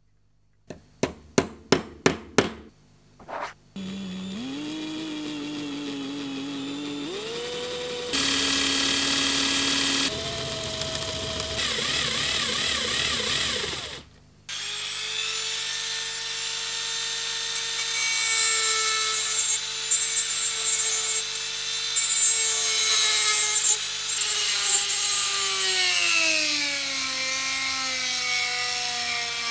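A quick run of sharp clicks, then a small power tool speeds up and drills into the end of a rusty metal pencil-sharpener shaft. After a short break, a rotary tool's cut-off disc grinds through the metal shaft with a steady motor whine, its pitch sagging under load near the end.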